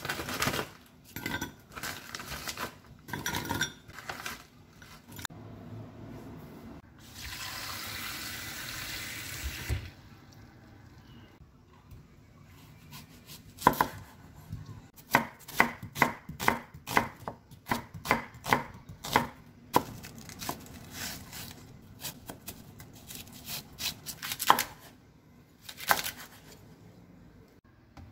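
A kitchen knife slicing an onion on a wooden cutting board, a series of sharp knocks about two a second. Before it, frozen shrimp rattle and click into a glass bowl, followed by a few seconds of steady hiss.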